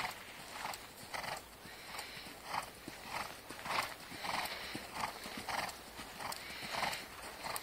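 Horse cantering on sand arena footing: muffled hoofbeats in an even stride rhythm, about one stride every 0.6 seconds.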